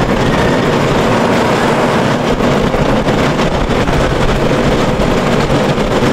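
Jaguar steel roller coaster running: a steady, loud rumble of the coaster train on its track.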